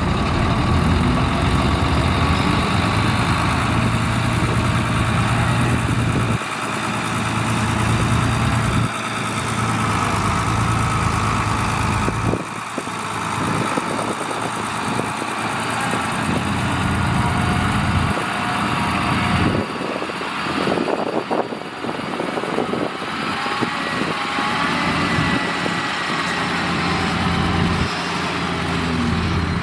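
Heavy diesel engines of road-construction machinery running, with the low engine drone changing and falling away several times, at about 6, 12, 18 and 20 seconds in.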